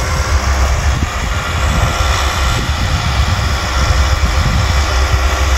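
Kubota farm tractor's diesel engine running steadily as it pulls a ridging implement through dry soil.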